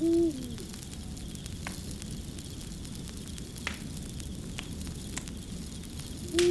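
Crackling wood fire: a steady low rumble and hiss with scattered sharp pops, about one every second. A short, low-pitched call that drops in pitch at its end sounds at the very start and again at the end, louder than the fire.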